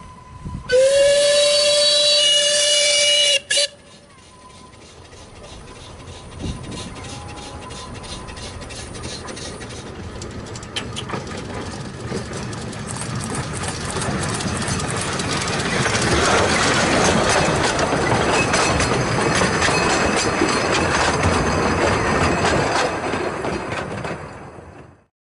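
A narrow-gauge steam locomotive's whistle is blown once, a steady note lasting about three seconds that cuts off sharply. Then the locomotive's exhaust beats and the train's wheels on the rails grow steadily louder as it approaches and passes close by.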